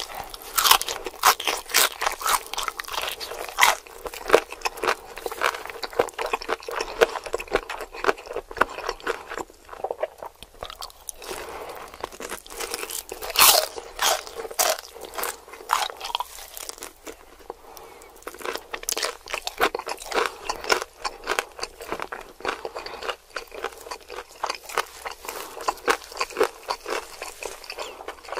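Close-miked crunching and chewing of crispy fried chicken: crackly bites into the battered crust and chewing, with a brief lull and the loudest crunches about halfway through.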